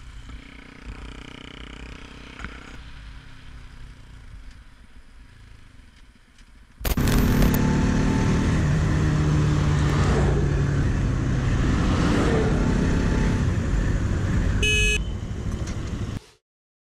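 Motorcycle riding noise from an on-bike camera. It starts as a quieter stretch of engine and road noise. About seven seconds in it gives way to a much louder motorcycle engine running steadily, with wind rush. Near the end comes a brief horn toot, then the sound cuts off.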